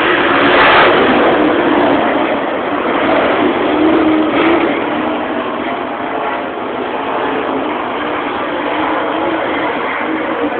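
Race car engines running as cars lap a dirt oval track, a loud, fairly steady drone that swells briefly about a second in.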